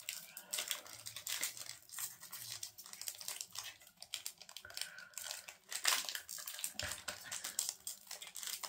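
A Disney Lorcana booster pack's crinkly foil wrapper being picked at and torn open by hand, crackling irregularly throughout. The pack is stubborn and hard to open.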